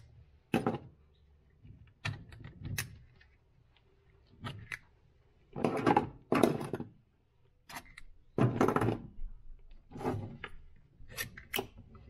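Spring clamps being unclipped from a soft-plastic lure injection mold and set down on the workbench: a string of irregular clacks and clatters, each brief.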